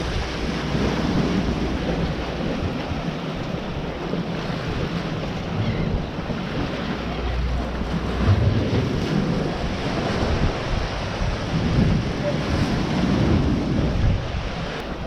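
Strong gusty wind buffeting the microphone, with surf washing beneath it; the low rumble swells and eases with the gusts.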